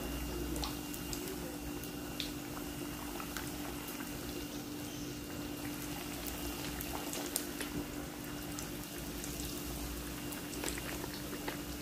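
Mandazi dough pieces deep-frying in hot oil: a steady sizzle with scattered small pops, over a faint steady hum.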